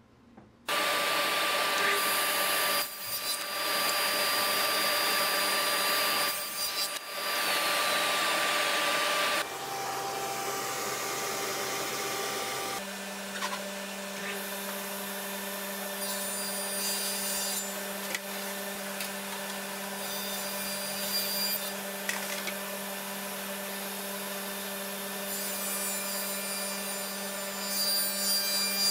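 Woodshop power saws. A loud saw runs for the first nine seconds or so, with brief dips. Later a table saw with overhead dust collection hums steadily, getting louder near the end as a wooden panel is ripped through the blade.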